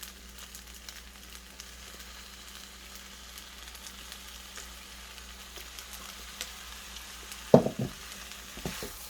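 Fried rice sizzling in a hot pan, a steady high hiss. About three-quarters of the way through comes one loud knock, followed by a few lighter ones.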